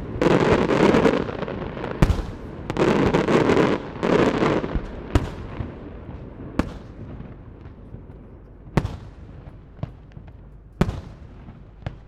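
Aerial fireworks shells bursting. Three dense clusters of rapid crackling reports come in the first five seconds. After that, single sharp bangs (salutes) come every second or two, each trailed by a short echo.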